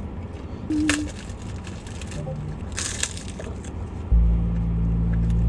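Short crackles of a plastic food wrapper being handled while eating take-out sushi, then a loud steady low hum that starts suddenly about four seconds in.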